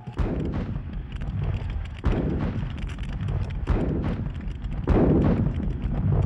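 Civil War field cannons firing: four heavy booms at uneven intervals of one to two seconds, each dying away slowly over a continuous low rumble.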